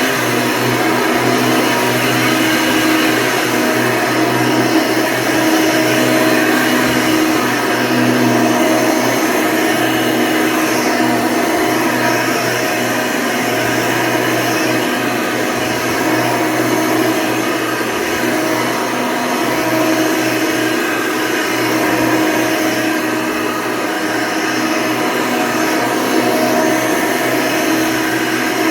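Hoover Legacy II upright vacuum, fitted with a 20-bladed motor fan, running steadily with an even whooshing hum.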